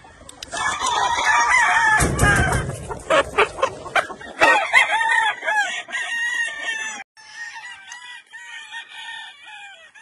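Gamefowl roosters crowing and clucking, several calls overlapping. About seven seconds in, the sound drops suddenly to fainter, more distant crowing.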